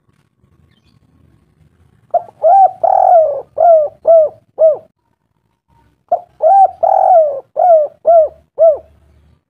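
A bird calling: two identical phrases a few seconds apart, each a quick series of about six short notes that rise and fall in pitch.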